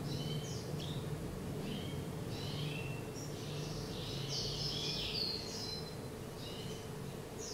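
Black-throated canary (Somereni) chick calling in a quick, uneven series of short, high chirps, busiest about four to five seconds in, over a steady low hum.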